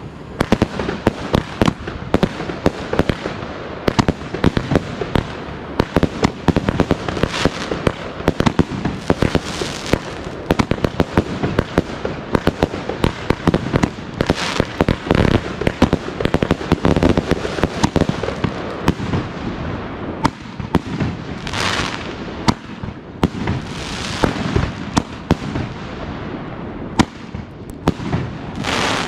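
New Year's Eve fireworks and firecrackers going off in a dense, continuous barrage of irregular bangs and crackles, with several brief hissing rushes.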